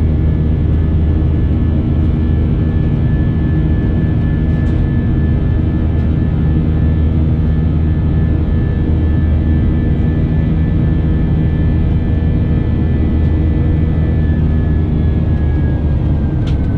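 Airbus A320 jet engine and airflow heard inside the cabin during the climb: a steady loud drone with a high engine tone that falls slightly near the end.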